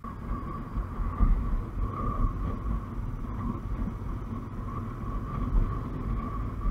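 Motorcycle riding along a road: the engine runs steadily under a rumble of wind on the microphone, with a steady whine running through it.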